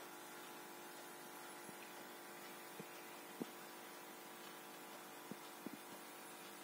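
Faint steady electrical hum of running aquarium equipment, with a few soft taps scattered through it.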